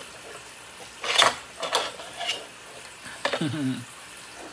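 Hard plastic toy pieces being handled: an action figure and a cracked eggshell piece are shifted and fitted onto a plastic egg playset, with a scraping rustle and a few sharp clicks and knocks, the loudest about a second in.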